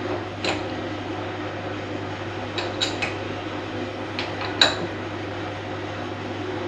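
Sharp metallic clicks and clinks from a wrench and socket on a classic Mini's castellated front hub nut as it is torqued up. About six in all, with a quick cluster of three near the middle and the loudest one a little later, over a steady low hum.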